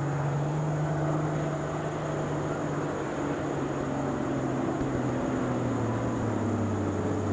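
Turbocharged diesel engine of an International Harvester pulling tractor running at full power under load as it drags a weight sled, a steady heavy drone whose note drops lower about five seconds in.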